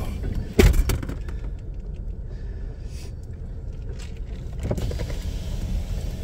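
Empty coal train's cars rolling past a grade crossing, a steady low rumble heard from inside a car. A sharp knock about half a second in is the loudest sound, with a few fainter clicks later.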